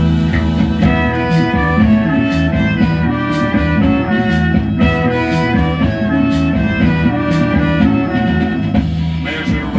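Psych garage rock 45 playing on a turntable: an instrumental passage of long held lead notes over bass, with drum and cymbal hits about once a second.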